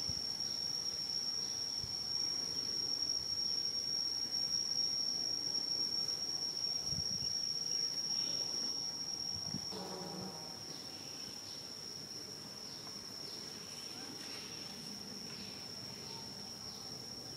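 An insect's steady high-pitched buzz, one unbroken tone that cuts off suddenly about ten seconds in. Faint short chirps sound above it, and a brief low call comes near the cutoff.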